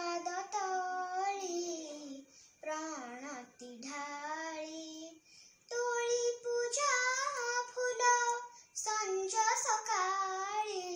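A young girl singing a Hindi devotional prayer song solo, without accompaniment, in four long phrases with short breaths between them.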